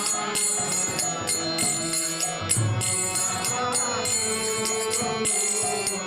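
Bengali devotional song sung kirtan-style over a held instrumental drone, with a steady metallic jingling beat.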